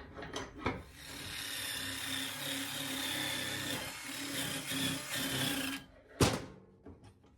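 Power wire brush scrubbing a small metal part, the accelerator pedal barrel, for about five seconds: a steady motor hum under a scratchy hiss. It stops, and there is a single sharp knock a moment later.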